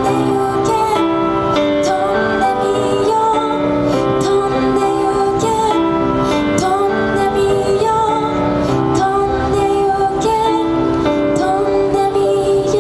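A woman singing a slow J-pop ballad into a microphone over an instrumental accompaniment, the closing part of the song.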